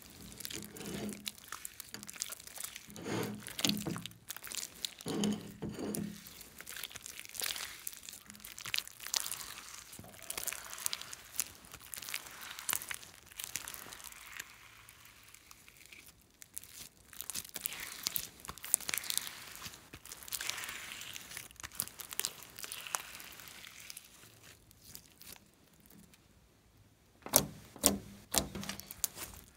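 Hands kneading and stretching sticky glitter slime: irregular wet squishing and crackling with small pops as the slime pulls apart. Near the end it turns to a run of sharp, louder pops as fingers poke into the slime.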